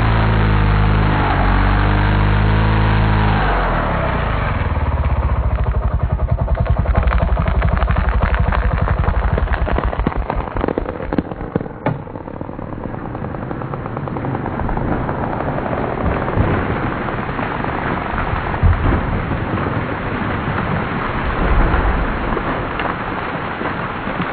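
An engine runs steadily for about three seconds. Then a long run of rapid cracking and snapping starts as the dead red oak breaks and comes down. After that come scattered thumps and snaps of limbs hitting the ground and settling.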